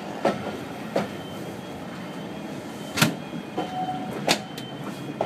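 Railway carriage rolling slowly along the track, with a steady running noise and sharp irregular clanks and knocks from the wheels and running gear, the loudest about three seconds in. A faint high squeal comes and goes.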